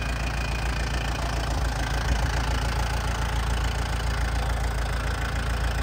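Yanmar FX32D compact tractor's four-cylinder diesel engine idling steadily.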